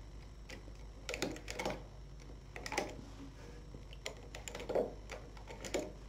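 Light, irregular clicks and taps of a hand transfer tool against the metal needles of a single-bed knitting machine as stitches are lifted off the needles one by one for a decrease.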